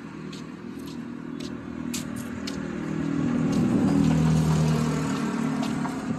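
A motor vehicle passing on the street, its engine hum swelling to a peak about four seconds in and then fading. Footsteps on the pavement tap about twice a second.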